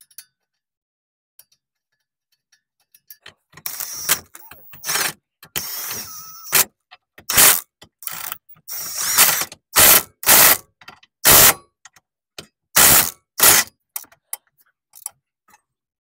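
Milwaukee Fuel cordless impact wrench running down the bolts that join the new ball joint to the lower control arm. It runs a longer spin first, then a series of short hammering bursts as the bolts seat and tighten.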